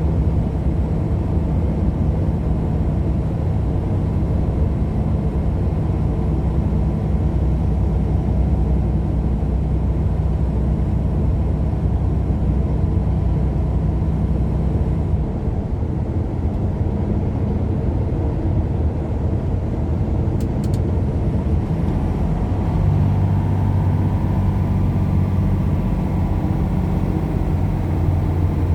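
A motor vehicle driving along the road: a steady low engine hum over road noise. The engine note shifts about halfway through and again near the end.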